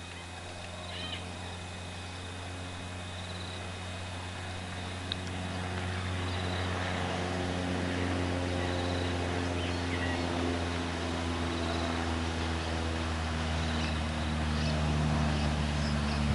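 A steady low engine hum with several pitches, growing gradually louder, with faint short high chirps coming and going above it.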